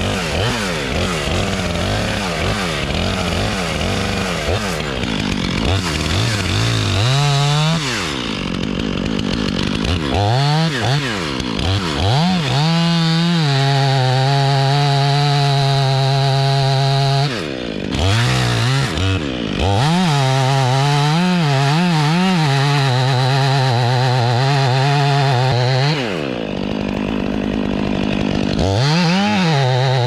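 Stihl chainsaw making a felling cut in a large poplar trunk. Its engine revs up and down in the first several seconds, then holds at full throttle through long stretches of cutting. It drops briefly a few times and revs back up near the end.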